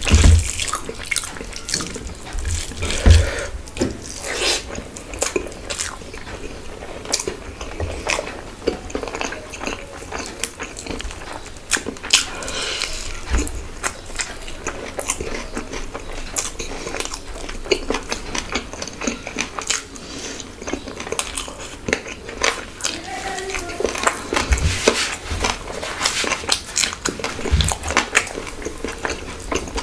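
Close-up eating sounds: chewing with wet mouth clicks and smacks while a man eats spiced rice (bhuna khichuri) with his hand, fingers squishing and mixing the rice on the plate. There are a few loud thumps in the first three seconds.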